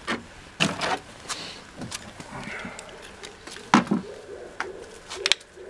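Scattered light clicks, taps and rustles of hands handling small plumbing parts and a roll of thread-seal tape.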